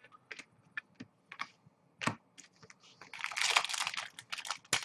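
Chrome trading cards clicking as they are flicked through a stack in the hand, then, about three seconds in, a foil card pack crinkling and tearing as it is ripped open, in several bursts.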